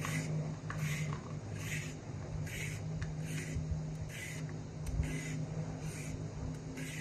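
Vegetable peeler scraping down a raw carrot in quick strokes, about one every second, shaving off strips of peel. A steady low hum runs underneath.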